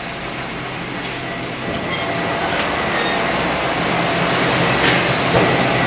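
Steady din of a CNC machine shop with machines running, growing louder as the door into the shop opens, with a faint steady high whine from about two seconds in.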